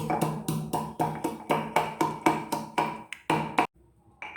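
Pestle pounding roasted whole spices (peppercorns, cinnamon, cloves, cardamom) in a mortar, about four sharp strikes a second with a ringing tone between them. The strokes stop briefly near the end, then start again.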